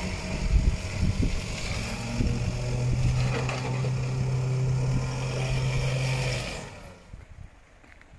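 A 4WD being winched out of a deep rut, its winch and engine running together: a steady drone of even pitch that stops about six and a half seconds in.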